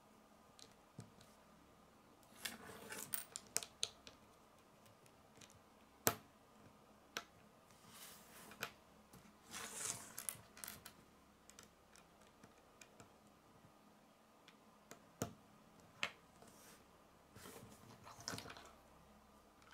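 Small plastic Lego plates being handled and pressed together on a wooden tabletop: scattered sharp clicks and short bursts of light rattling, with a few louder snaps.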